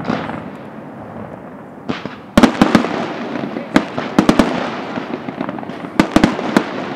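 Aerial firework shells bursting in a display: a fading rumble at first, then from about two seconds in a run of sharp bangs that come in quick clusters.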